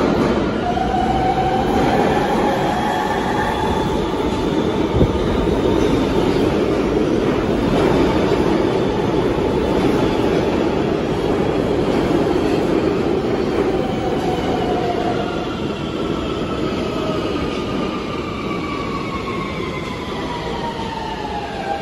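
R160B subway train running into the station and slowing to a stop, with a loud steady rumble of steel wheels on the rails and high tones over it. Near the end an electric whine falls steadily in pitch as the train brakes.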